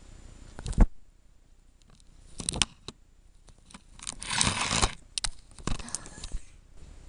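Close handling noise on the camera: a sharp knock about a second in, scattered clicks, and a rustling scrape a little after the middle as something rubs against it and covers the lens.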